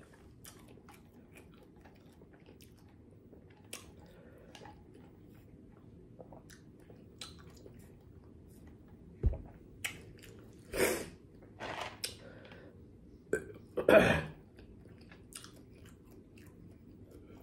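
Close-miked drinking through a straw: faint sips and swallows, with a cluster of louder short mouth noises between about nine and fourteen seconds in.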